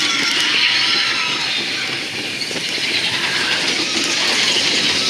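Big Thunder Mountain Railroad's mine-train coaster cars rolling along the track, a steady rushing rattle of wheels on rail with a faint squeal.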